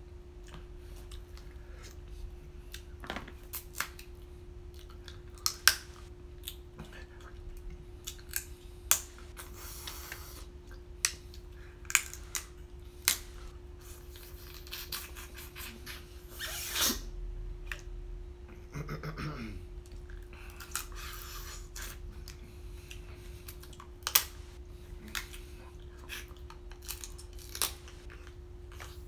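Crab leg shells being cracked and snapped apart by hand, with irregular sharp clicks, cracks and utensil taps as the meat is picked out and eaten. A steady faint hum lies underneath.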